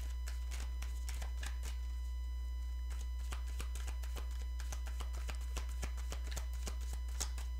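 Tarot cards being shuffled by hand: faint, irregular soft clicks and flicks of the cards, over a steady low hum.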